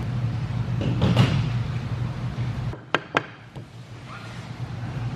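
A steady low hum, then two sharp knocks close together about three seconds in: a mallet tapping a steel muzzleloader barrel on the workbench.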